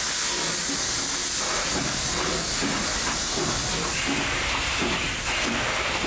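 Steam locomotive hissing steadily as steam jets from its cylinder drain cocks.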